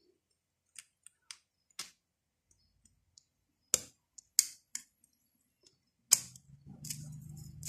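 Sharp, irregular metallic clicks as a piston ring for a VW Golf Mk1 1.8 engine is spread and worked by hand into its groove on the piston. A low steady hum with some rustle comes in near the end.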